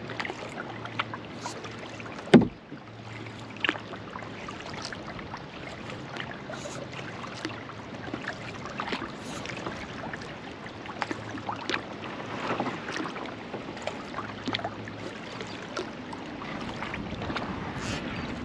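Kayak paddling: the paddle blades dipping and splashing in the water, with many small ticks throughout and one sharp knock, the loudest sound, about two seconds in.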